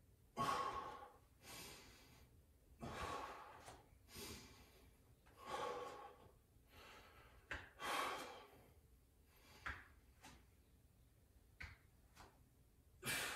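A man's hard breathing from exertion: forceful breaths about every second and a quarter, then a pause of a few seconds broken only by a few faint clicks, and one more breath near the end.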